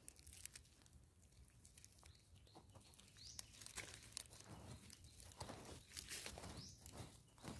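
Faint, scattered scratching and crumbling of dry, loose soil being scraped and dug out of a hole, in short strokes that come more often from a few seconds in.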